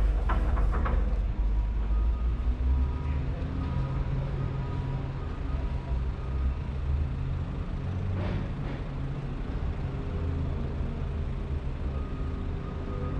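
Motor vehicle running with a steady low rumble of engine and road noise, with a short rattle about half a second in and again about eight seconds in.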